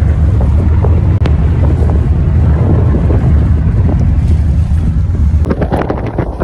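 Strong wind buffeting the microphone, a loud steady low rumble, with a few knocks near the end.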